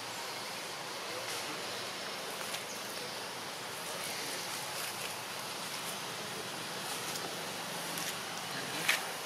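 Steady outdoor background hiss with a few faint ticks and one sharper short click near the end; the monkeys themselves make no clear call.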